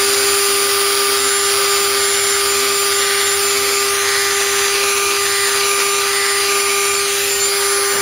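Dremel rotary tool running at a steady high whine, its small bit grinding into a rusty steel exhaust pipe to cut it open.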